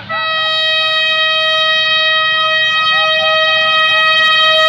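Pakistan Railways HBU-20 diesel locomotive's horn sounding one long, steady warning blast, growing slowly louder as the train closes in.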